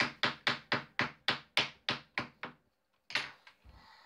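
A small digging tool tapping rapidly and evenly into a plaster fossil-dig brick, about four taps a second. The taps stop about two and a half seconds in, followed by one more knock.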